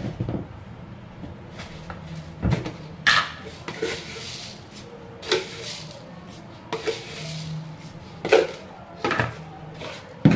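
Kitchen clatter as plastic containers and dishes are handled: a handful of separate knocks and clunks with some rustling between them.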